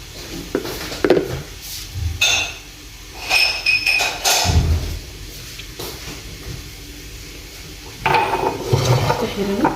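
Kitchenware being handled: metal pots and utensils knocking and clinking. There is a ringing clink a little over three seconds in, a dull thud just after, and a burst of clattering near the end.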